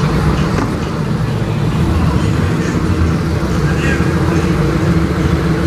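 Car engine idling steadily, its low exhaust note holding a constant pitch.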